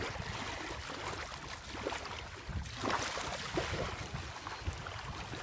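Wind buffeting the microphone, with small waves washing at the water's edge, a brief swell of the wash about three seconds in.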